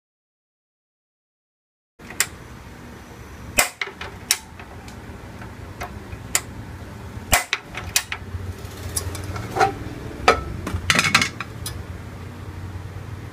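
Metal cookware knocking and clinking on a tabletop gas stove as a wok is handled: a dozen or so sharp, irregular knocks over a low steady hum, starting after about two seconds of silence.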